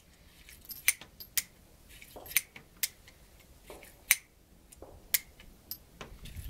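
Heritage Rough Rider .22 LR single-action revolver being unloaded by hand: a series of sharp metallic clicks, roughly one every half second to a second, as the cylinder is turned chamber by chamber and the cases are pushed out with the ejector rod.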